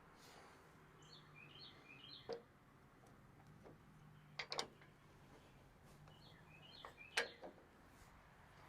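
Faint bird chirping in two short runs of quick notes, with four sharp knocks, the loudest about seven seconds in.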